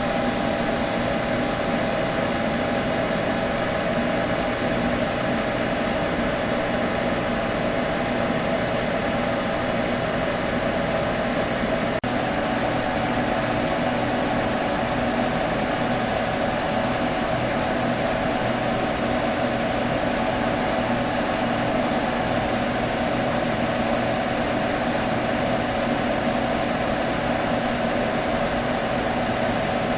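Computer humming steadily: an even fan whir with a few held hum tones. The tone shifts slightly about twelve seconds in.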